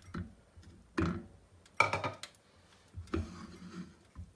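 A metal spoon scraping and tapping against a nonstick frying pan as pieces of butter are pushed around, in several short strokes with brief pauses between.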